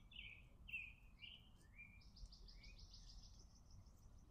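Birds chirping faintly: a string of short high chirps, then from about halfway a quick higher trill of roughly eight notes a second.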